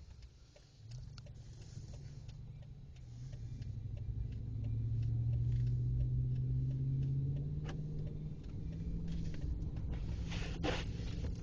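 Car engine revving under load as the car accelerates into deep snow. The engine note climbs over the first few seconds and then holds steady, with scattered light ticks and a short knock near the end.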